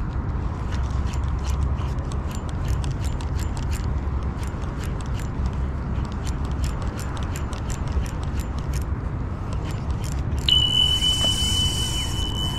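A steady low rumble with a fast run of light ticks, about three or four a second, that stops near the end; about ten seconds in, a high, steady electronic beep starts and holds.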